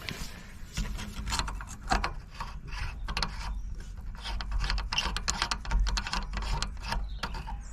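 Quick, irregular clicks and scrapes of the pressure washer's filter parts being handled and fitted back together after cleaning, over a steady low rumble.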